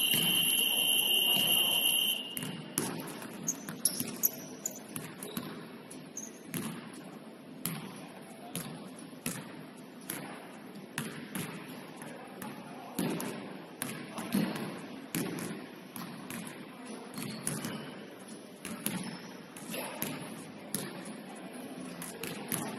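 Basketball scoreboard buzzer sounding, a steady electronic tone for about two seconds, then a basketball bouncing repeatedly on a hardwood court.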